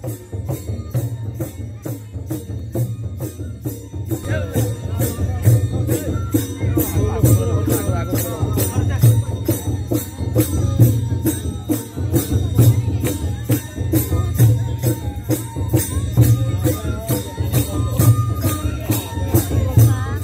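Rhythmic music with jingling metal percussion struck about two to three times a second over a deep, steady drum beat. A melody with voices joins about four seconds in.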